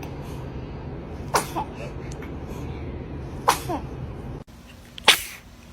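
A baby sneezing three times, about two seconds apart. Each sneeze is short and sharp.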